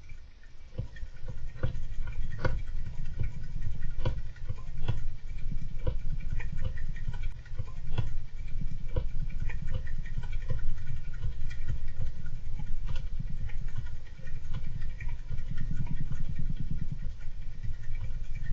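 Pet golden hamster moving about its cage: irregular light clicks and scratchy patter, about one or two a second, over a steady low rumble.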